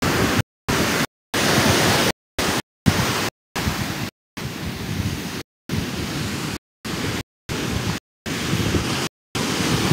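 Ocean surf breaking and washing up a sandy beach, a steady rush mixed with wind on the microphone. The sound drops out in short gaps about once a second.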